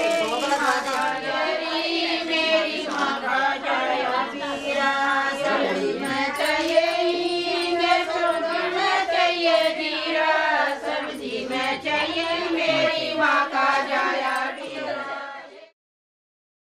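Women's voices singing a Hindi wedding folk song together, with long held notes. The singing cuts off suddenly near the end.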